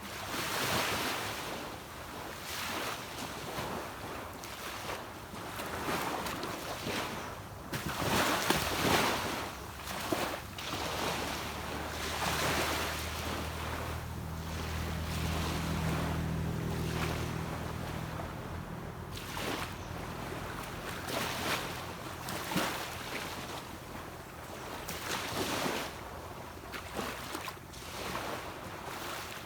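Small sea waves washing onto a beach, each wash swelling and breaking every few seconds. A boat engine hums low beneath them from about twelve seconds in, strongest a few seconds later, then fades away.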